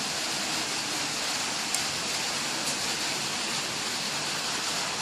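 A steady, even hiss of noise, with a faint tick a little under two seconds in.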